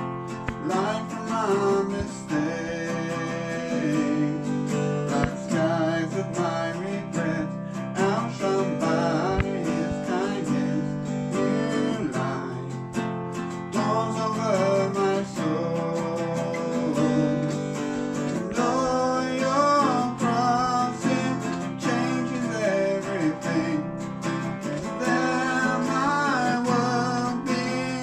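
Music led by strummed acoustic guitar, with a melody line moving over the chords.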